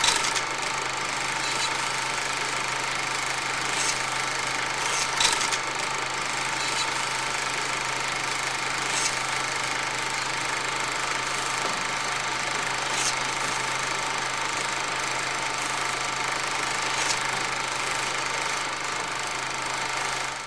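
Old film projector running: a steady mechanical whirr and hiss with a low hum and a few sharp clicks scattered through it. It cuts off suddenly at the end.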